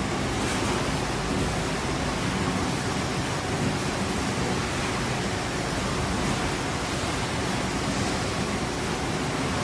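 Steady rushing din of a potato kettle-chip processing line running, with its conveyors and machinery making an even noise and no distinct knocks or rhythm.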